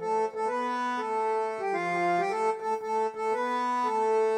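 Instrumental interlude with no singing: a melody played on a reed instrument with an accordion-like sound, sustained notes stepping from one to the next over a held lower note.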